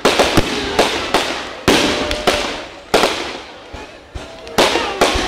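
Aerial fireworks exploding in quick succession: about a dozen sharp bangs in five seconds, at uneven gaps of a quarter to three quarters of a second, each fading out over about half a second.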